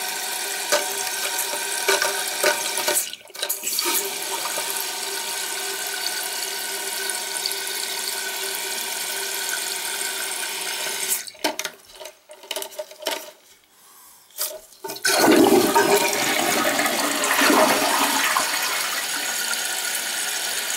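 Water running into a new Gerber toilet's tank through the fill valve, a steady hiss that drops out briefly about three seconds in and falters from about eleven seconds. From about fifteen seconds comes a louder rush of water.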